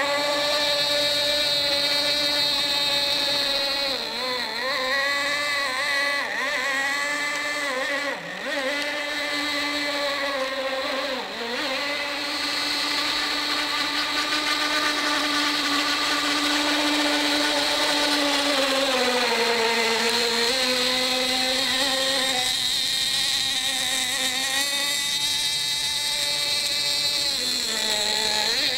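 Radio-controlled boat's motor running at high speed with a steady high whine. The pitch dips briefly three times in the first half, as the throttle eases and opens again, and sags for a couple of seconds later on.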